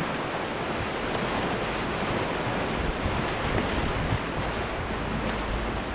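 Rushing white-water rapids of the Upper Seti river: a steady, unbroken rush of churning water around the raft.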